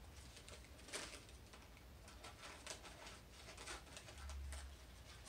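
Scissors snipping a strip out of a paper coffee filter: a series of faint snips and paper rustles, the sharpest about a second in.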